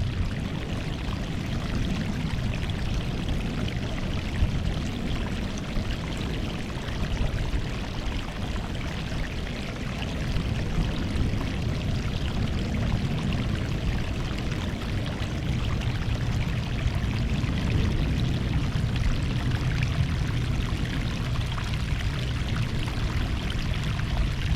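Sea waves washing steadily onto the shore: a continuous rush of water with a low rumble that swells and eases gently.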